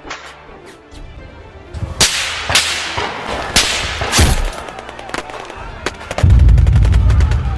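A run of sharp cracks and bangs of battle sound effects over background music, followed by a loud, deep boom about six seconds in.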